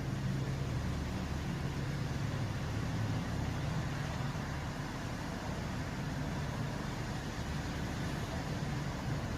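Steady low drone of a car on the move: engine and road noise.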